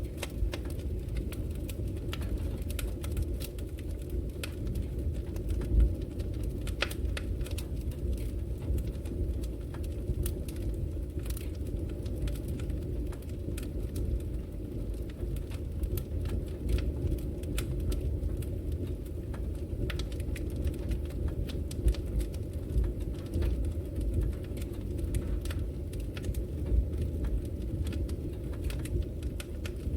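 Wood fire burning in a fireplace: a steady low rumble of the flames with frequent irregular sharp crackles and pops from the burning logs.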